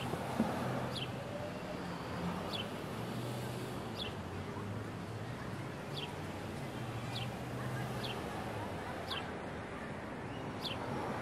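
A bird repeats a short, high, falling chirp about once a second, over a steady urban background of distant traffic noise and a low engine hum.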